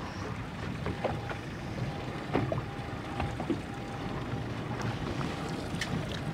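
Wind and water noise around a small fishing boat drifting at sea, with scattered light clicks and knocks and a faint steady high tone.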